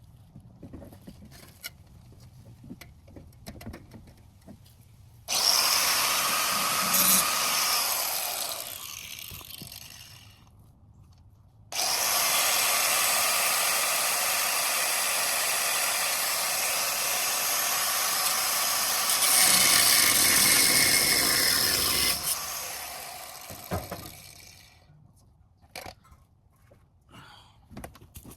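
Angle grinder cutting through the exhaust connections in two runs: a short one of a few seconds, then a longer one of about ten seconds. Each starts suddenly and winds down as the grinder coasts to a stop.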